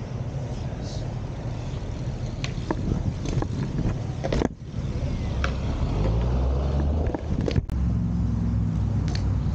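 BMX bike ridden over paving: tyres rolling, wind on the microphone, and a few sharp clicks and knocks from the bike. About halfway through, a low steady engine hum of road traffic comes in.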